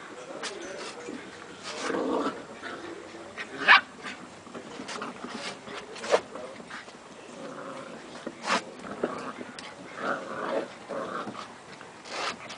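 Puppies play-fighting: low growls broken by several short, sharp yips, the loudest a little under four seconds in.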